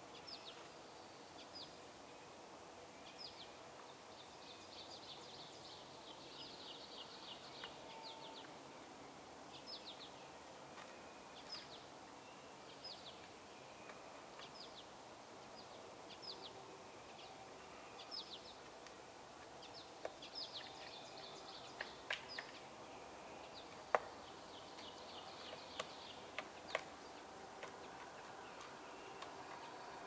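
Small songbirds chirping in the background: short, high down-slurred notes about once a second, with a couple of quick trills. In the second half a male pileated woodpecker strikes the dead wood with its bill a few times, giving sharp, separate knocks as it chisels at the rotten trunk.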